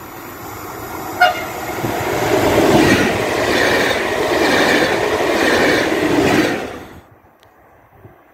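Trenord double-deck electric multiple unit giving one short horn toot about a second in, then passing close by with a loud rush of wheel and rail noise. The sound cuts off suddenly about seven seconds in.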